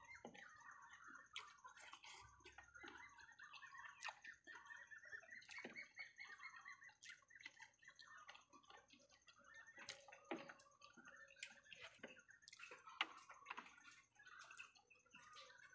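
Faint ambience of small birds chirping continuously, with scattered short clicks and smacks from eating by hand off a plate, and a faint steady high whine behind them.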